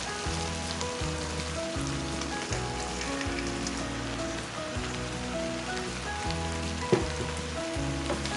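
Food sizzling and crackling as it fries in hot oil in a pan, over background music with a steady bass line. A single sharp click sounds near the end.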